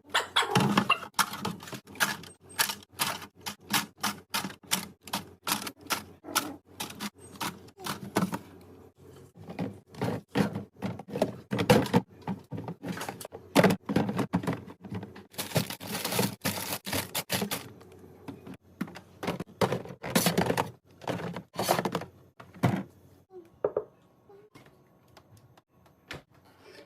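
A rapid run of sharp clicks and knocks as hard items are handled and set down one after another, two to four a second, with a few brief rustles. About 23 seconds in it thins out to a few faint sounds.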